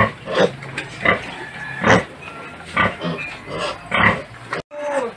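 Piglet squealing in short, loud cries over and over, about one a second, as it is held up for a vitamin B-complex injection.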